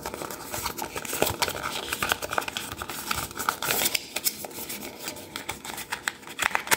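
Cardboard packaging insert being handled and pried open by hand: irregular crinkling, scraping and small clicks of cardboard.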